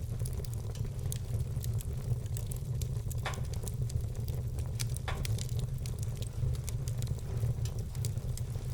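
Logs burning in a wood fireplace, crackling: a steady low rumble of flames under a stream of small quick clicks, with two louder pops about three and five seconds in.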